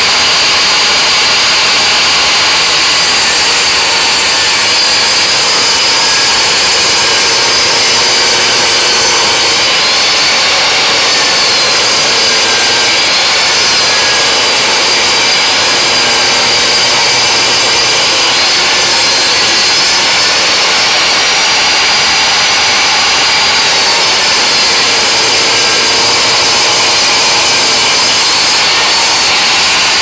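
Jobsite table saw running steadily with a high whine while a canary wood board is ripped through the blade.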